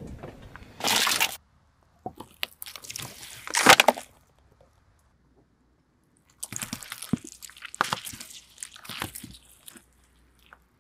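A car tyre rolling over and crushing eggs and oranges: cracking, popping and wet squishing in several bursts, the loudest crack just before four seconds in, then a gap of about two seconds before more crushing and squelching.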